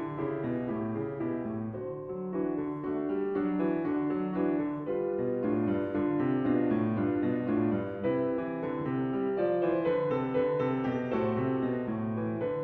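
Piano music playing, a steady flow of notes at an even level.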